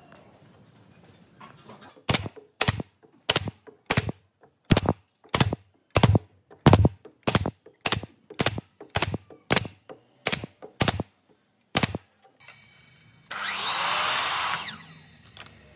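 Pneumatic brad nailer firing about sixteen times, roughly one shot every two-thirds of a second, driving nails through hardwood pieces into a pine board. Near the end a sliding miter saw cuts through a pine board for a second or two, swelling then dying away.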